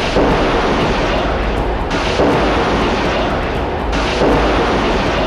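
Missile launch: the rocket motor firing at lift-off, a loud, steady rush of noise.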